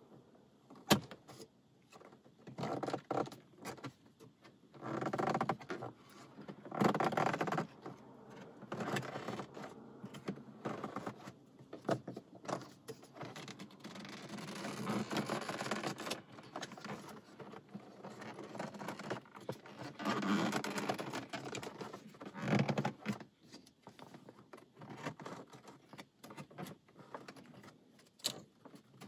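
Plastic dashboard trim on a Lexus CT being pried and worked loose with a plastic panel removal tool: bursts of scraping and creaking of the air vent panel, with a few sharp clicks about a second in and near the end.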